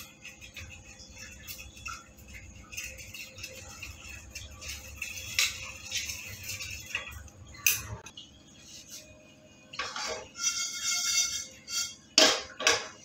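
Steel spoon scraping and clinking against a stainless steel plate as ghee is spread over it, with a few sharp knocks of cookware near the end.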